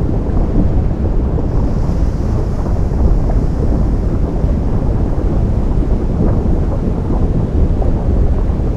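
Ocean surf meeting a lava flow: a steady, deep roar of waves, with a faint higher hiss joining about a second and a half in.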